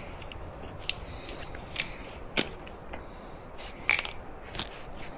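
A few scattered sharp clicks and light knocks from handling parts and tools, the loudest about two and a half seconds in and again near four seconds, over faint steady hiss.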